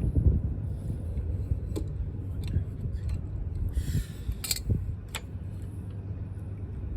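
Scattered sharp clicks of metal hand tools and scooter transmission parts being handled, with a short rustle about four seconds in, over a low background rumble.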